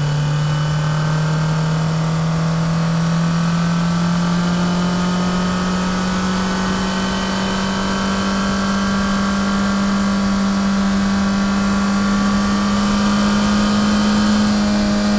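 Four-cylinder sports car engine running hard, its pitch climbing slowly and steadily as the revs build.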